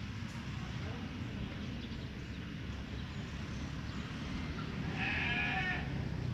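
A goat bleats once, briefly, about five seconds in, over a steady low background rumble.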